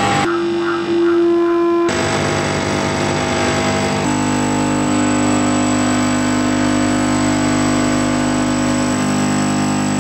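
Dense droning soundtrack of layered sustained tones over a noisy hiss. It shifts abruptly to a new set of pitches about two seconds in and again about four seconds in.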